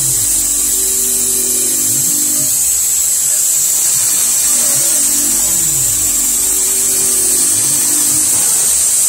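CNC mill's end mill cutting the optic pocket into the top of a steel pistol slide, with coolant or air nozzles on the cut: a steady high whine and hiss, under lower tones that rise and fall as the cutter makes repeated passes about every four to five seconds.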